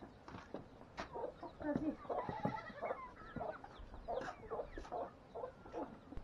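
Chickens clucking in short, repeated calls.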